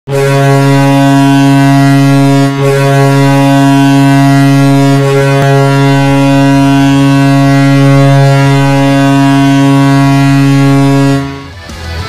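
Kahlenberg S-203CV air horn sounding as a hockey goal horn: one long, loud, steady low blast with a brief dip about two and a half seconds in, cutting off shortly before the end.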